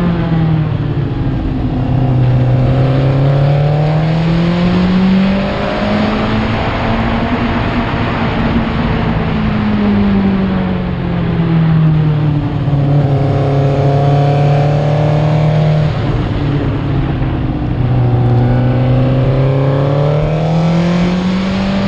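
Racing sidecar outfit's engine under power on a circuit, heard from a camera on its front fairing. The engine note climbs, eases briefly about five seconds in, then drops away around eleven seconds and stays low for several seconds before climbing again near the end.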